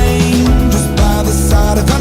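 Background music: a guitar-driven rock track with a steady drum beat.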